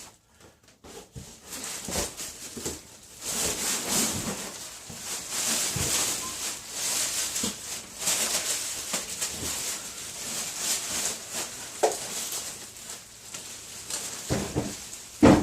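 Packing material rustling and scraping with scattered small clicks as a heavy miter saw is worked out of its styrofoam-packed cardboard box. A single loud thump comes near the end.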